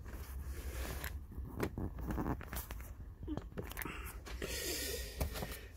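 Cardboard box and paper packaging being handled and opened: rustling and scraping with a string of small knocks and tearing sounds.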